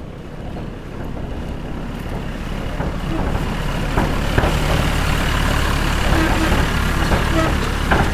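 Tractor engine running steadily, with a deep rumble that grows louder over the first few seconds and then holds.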